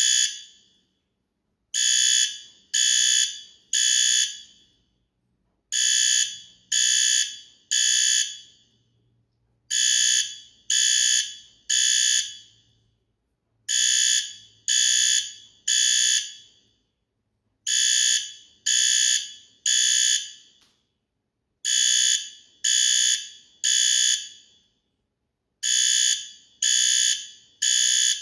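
Fire alarm sounding the temporal-three evacuation signal: three high, piercing beeps about a second apart, then a pause, repeating every four seconds.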